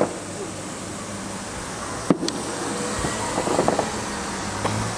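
Fireworks bursting, with one sharp bang about two seconds in and a fainter one near the end, over a steady low hum.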